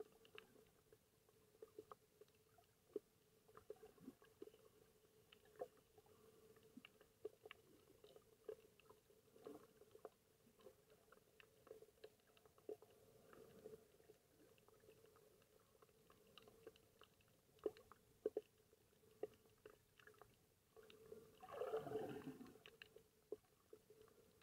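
Faint underwater ambience: scattered small clicks and crackles over a steady low hum, with a brief louder rush of noise near the end.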